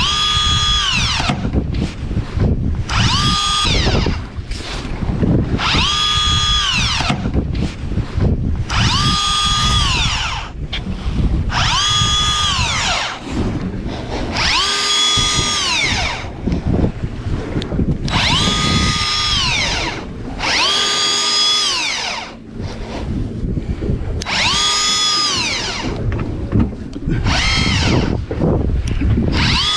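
Electric fishing reel motor winding in line in repeated bursts, about a dozen times. Each burst is a whine of about a second that rises in pitch, holds, then runs down. The fish is being hauled up from depth.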